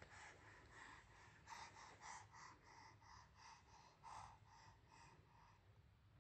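Dog panting faintly and quickly, about three breaths a second, stopping near the end.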